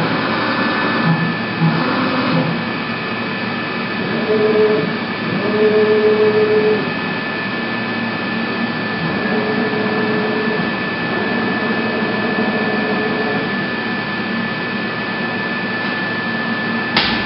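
AVIA FNE 50 N CNC tool milling machine running with a steady whine, while a lower whine from the axis feed drive starts and stops about four times as an axis is jogged with the electronic handwheel. A short click near the end.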